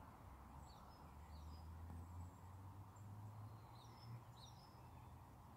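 Near silence: room tone with a faint low hum and a few faint, short high chirps from birds in the distance.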